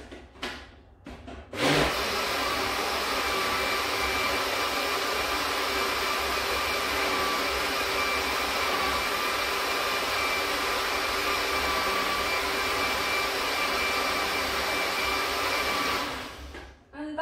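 A countertop electric blender switches on about two seconds in, after a few light knocks, and runs steadily at one speed, blending a thick coconut milk and mango mix. It winds down near the end.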